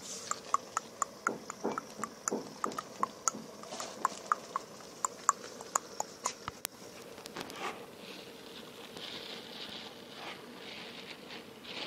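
Water in an aquarium tank: quick dripping plinks, several a second, for the first seven seconds or so, then a steady bubbling, splashing hiss from about eight seconds in.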